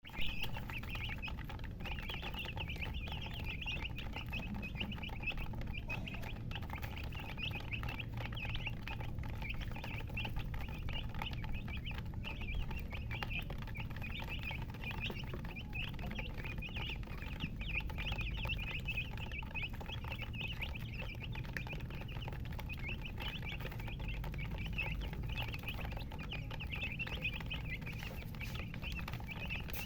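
Chicks chirping without pause: many high-pitched, overlapping cheeps, over a steady low hum.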